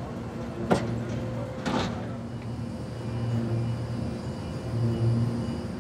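Wagon-tipping machinery in a peat works running with a steady hum while a peat wagon is tipped and emptied, with two clanks about a second apart early in the tipping.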